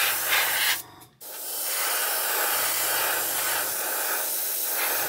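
Airbrush spraying grey primer: a steady hiss of air and paint that breaks off briefly about a second in, then runs on and cuts off near the end.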